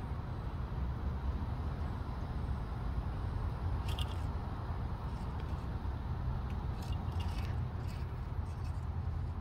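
Steady low outdoor rumble, with a few faint short clicks about four seconds in and again around seven to eight seconds.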